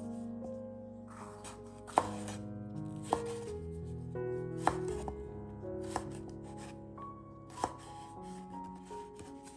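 Chef's knife slicing and dicing a small red pepper on a wooden cutting board: sharp knocks of the blade on the board, spaced irregularly a second or two apart, over soft background music.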